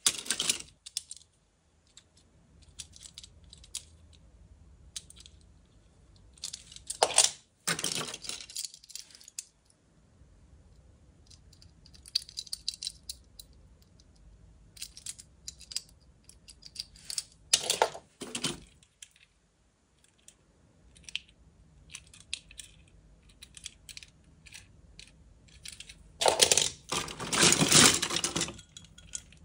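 Diecast toy cars clinking and clattering against each other as hands dig through a box full of them, in several short bursts, with light clicks of a single car being handled in between. The longest and loudest clatter comes near the end.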